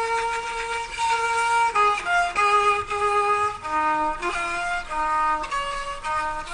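Background music: a slow solo violin melody of long held notes that step from pitch to pitch.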